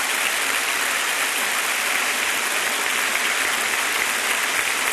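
A congregation applauding, a steady, dense clapping.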